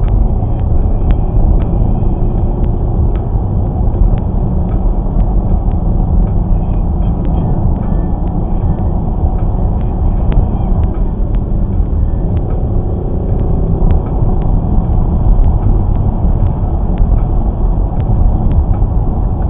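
Steady low rumble of a Jaguar XFR cruising at speed, heard from inside the cabin: tyre and engine noise with no change in pitch. Faint, irregular light ticks run over it.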